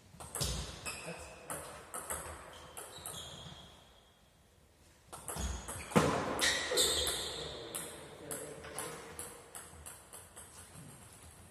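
Table tennis ball clicking sharply off bats and the table during a rally, each hit ringing briefly in the hall. There is a short pause partway through, and the loudest knock comes about six seconds in.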